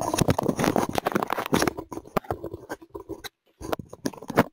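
Dense crackling and scraping noise on the microphone, like handling noise, thinning out after about two seconds, stopping briefly past three seconds and returning near the end.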